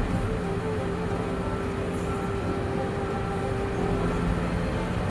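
Excavator's diesel engine running steadily, with a constant hum over a low rumble.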